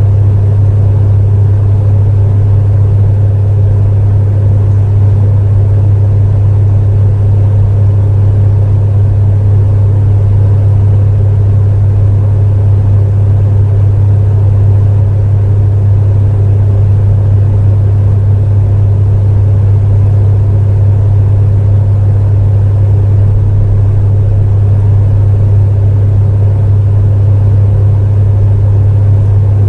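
Electric space heater running steadily: a strong low hum with an even rush of fan noise over it, unchanging throughout.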